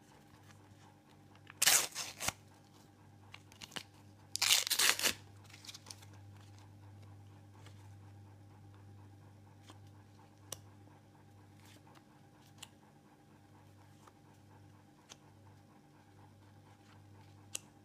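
Panini sticker packet being torn open: two short bursts of wrapper tearing and crinkling in the first five seconds. After that, only faint scattered clicks as the stickers are leafed through.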